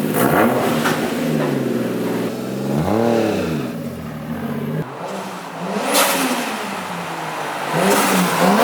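Toyota Supra MK2's 1JZ turbo inline-six revved several times through its new exhaust with a MagnaFlow muffler. Each blip rises and falls in pitch, with the biggest ones about three seconds in and near the end. The owner calls the result hermoso (beautiful), the tone he wanted: a little louder, but not straight-piped.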